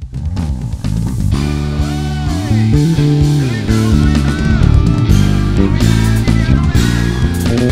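Five-string electric bass (a 7 Bass Custom TJ5-24 with Aguilar pickups) played fingerstyle, a melodic bass line over a full backing track. The backing track, with drums, swells in about a second in.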